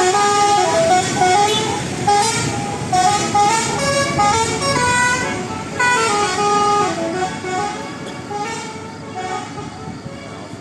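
A bus's telolet basuri musical air horn playing a melody of stepped, held notes over a noisy bed, growing fainter toward the end.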